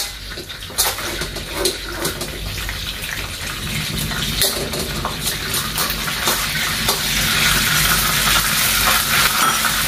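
Hot oil sizzling in a wok while a metal ladle stirs through chopped vegetables, with frequent short clicks and scrapes of the ladle against the pan. The sizzle grows louder over the last few seconds.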